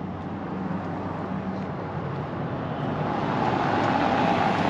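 A car driving by on the street, its tyre and engine noise growing louder as it comes close near the end.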